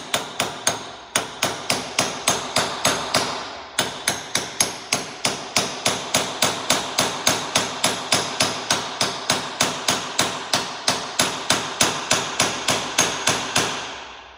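Ball-peen hammer tapping on a 1-inch-drive, 1 3/8-inch socket held against a bearing's outer race, driving the bearing into a New Idea 5209 discbine cutter bar gearbox. Rapid, even metal-on-metal taps with a ringing ring, about four a second, pausing briefly about a second in and again near four seconds.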